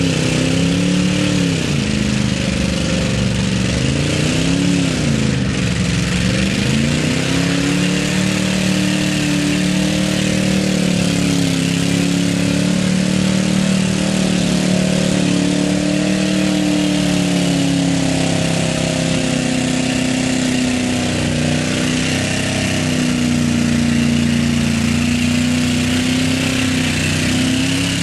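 Off-road truck engine revving up and down twice, then running at a steadier pitch that wavers slowly, with a constant hiss over it.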